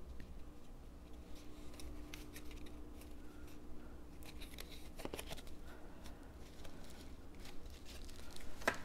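Cardstock paper pieces being handled and fitted together: faint rustles and light clicks, with a sharper tap about five seconds in and another near the end, over a faint steady hum.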